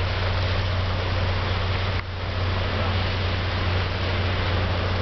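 Low steady drone of a passing lake freighter's engines, under an even rushing hiss of wind and water along the shore. The sound dips briefly about two seconds in.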